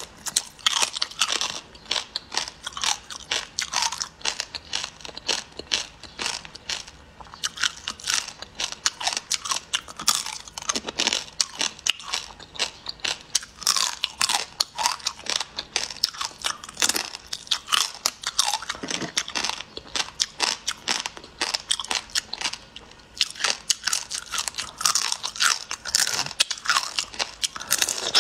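Mouth sounds of eating raw marinated shrimp: wet sucking and chewing with rapid, irregular crunchy clicks, going on without a break.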